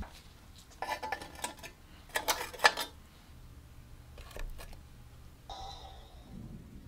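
Several short bursts of metallic clicking and scraping, the loudest about two to three seconds in: a screwdriver working the rusty slotted screws of an old sheet-steel card shuffler, and small steel screws and parts being set down on a wooden workbench.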